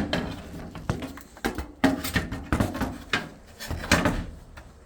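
Washer parts being pulled out and handled: a series of hard knocks and rattling clatters. The loudest come at the start, about two seconds in, and about four seconds in.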